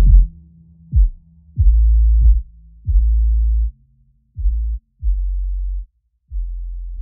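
Background electronic music: a run of deep bass notes, one about every second, each opening with a quick drop in pitch, growing quieter toward the end.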